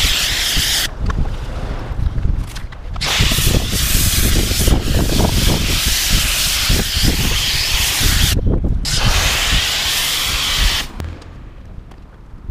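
MJJC snow foam lance on a Kärcher K7 pressure washer spraying foam with a steady hiss, in long sprays with short breaks where the trigger is let go, stopping near the end. Wind rumbles on the microphone throughout.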